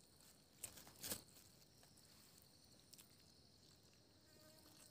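Two brief rustles of a plastic food bag being handled, about half a second and a second in, over a faint steady high insect drone.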